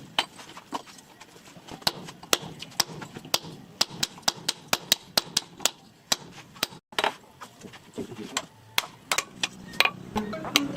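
Repeated sharp strikes of a tool on wood, about three a second, as in chopping or carving a piece of wood with a blade.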